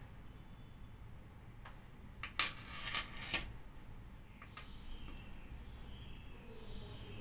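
Small lead airgun pellet clicking and rattling on a wooden tabletop as it is set down: a quick cluster of sharp ticks about two to three seconds in, with a couple of lighter ticks after.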